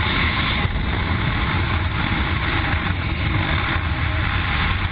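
Helicopter in flight heard from inside its cabin: a loud, steady blend of engine and rotor noise with rushing wind.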